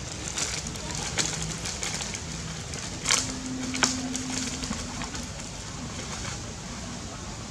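Dry leaves crackling and rustling under a macaque's feet as it shifts and walks over them, with a couple of sharper snaps a little past the middle, over a steady background hiss.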